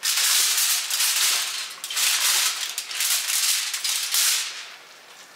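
Aluminium foil crinkling as it is peeled off a hot casserole dish and crumpled, for about four seconds, then dying away.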